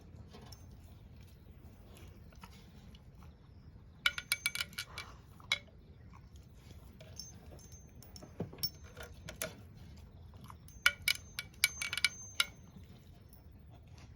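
Metallic jingling and clinking in two short flurries, about four seconds in and again about eleven seconds in, with small ringing tones after the clicks.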